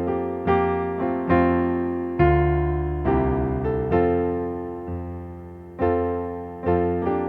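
Slow solo piano music: chords struck about once a second, each left to ring and fade, with one held for nearly two seconds midway.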